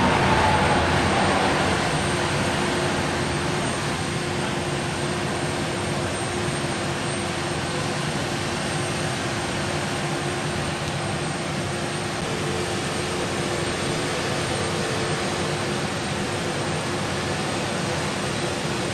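Boeing 737 MAX 8's CFM LEAP-1B jet engines running at low thrust while taxiing: a steady hiss with a low hum, a little louder at first and easing off about a second or two in.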